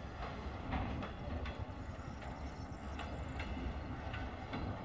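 Freight train of open wagons hauled by a ChME3 diesel shunting locomotive, rolling along the track. A steady low rumble carries irregular clicks and clanks from the wagons, about two a second.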